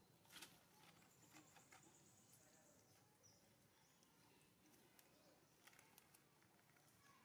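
Near silence: faint outdoor ambience with a few soft clicks and faint high bird chirps.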